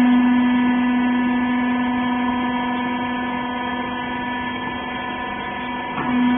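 Hydraulic press baler's pump unit running with a steady, even hum. The hum weakens through the middle and comes back strongly near the end.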